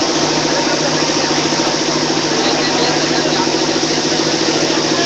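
An engine running steadily at idle, with a fast, even throb, under a loud, constant din.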